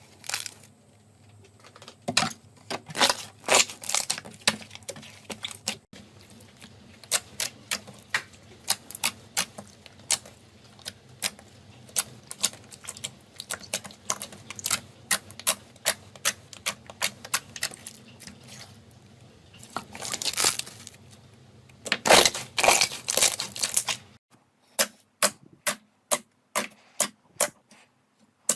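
Slime being squeezed and poked by hand, giving an irregular run of sharp clicks and pops from air pockets bursting. The pops come thickest in two dense flurries, about two seconds in and again about twenty seconds in.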